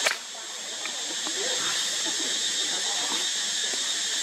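Steady high-pitched drone of forest insects, with a short sharp click right at the start.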